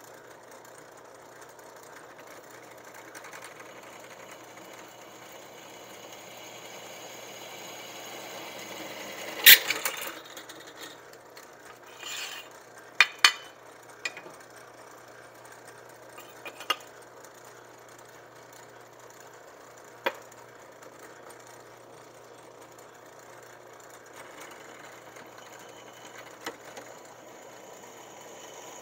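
Scattered metal clanks and knocks, about seven, the loudest about a third of the way in, as a steel drill-press vise is shifted and clamped on the drill-press table, over a steady motor hum.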